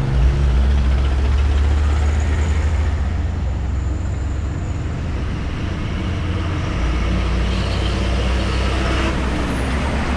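Road traffic passing close by: a steady, heavy low rumble of engines and tyres on asphalt, with one vehicle going by near the end, its engine note falling in pitch.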